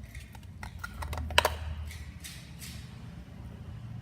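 Basic slime being squeezed and pressed by hand, giving a string of sticky clicks and pops, the sharpest about a second and a half in.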